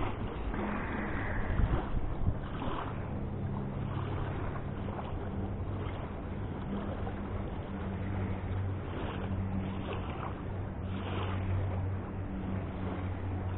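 Steady outdoor wash of a flowing river and wind on the microphone, with a faint low hum underneath and a few brief rustles in the first seconds.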